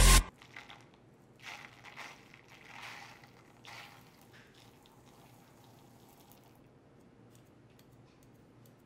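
Electronic music cuts off abruptly. A few faint, soft, short noises follow over the next few seconds, then quiet room tone.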